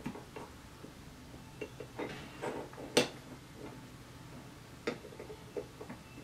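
Light clicks and taps of small drone frame parts and 3D-printed plastic pieces knocking together as they are fitted by hand, scattered and irregular, the sharpest click about three seconds in.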